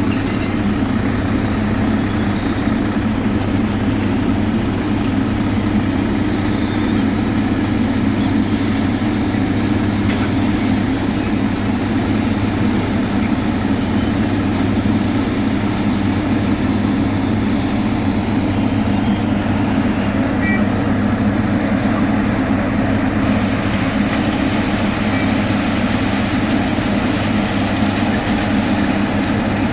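Heavy diesel engine of road-paving machinery running steadily at constant speed, a continuous deep drone with no breaks or changes in revs.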